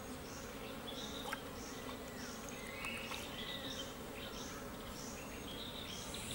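Dry-forest insect ambience: a steady insect buzz with a short high chirp repeating about every two-thirds of a second, and a few faint bird whistles about two seconds in.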